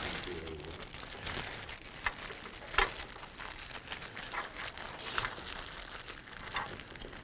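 Small clear plastic bag crinkling as it is handled, a scattering of short crackles, the sharpest about three seconds in.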